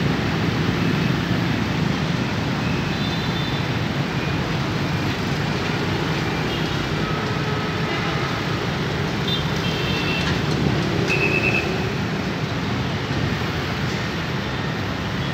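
Busy city street traffic: motorbikes and cars running and moving slowly through a level crossing, with a few short high-pitched beeps about two-thirds of the way through.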